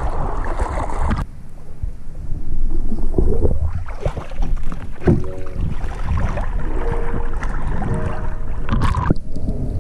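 Water splashing and sloshing around a camera at the water surface as a swimmer moves through it. The sound turns muffled for a moment about a second in as the camera dips under, then comes back with splashes and wind on the microphone.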